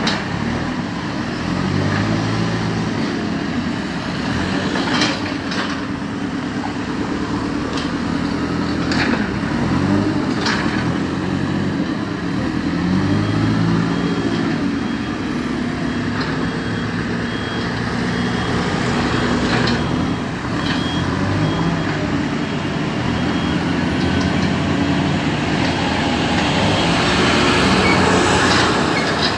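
Diesel engines of road-works machinery and passing traffic, the engine note rising and falling as they rev and work, with a few short knocks. An intermittent high beep sounds for several seconds in the middle, and the sound grows loudest near the end as a JCB backhoe loader works up close.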